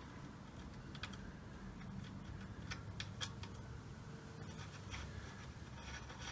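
Faint scattered clicks and light scraping of small metal parts being handled as the shifter cable's little adjuster is threaded on.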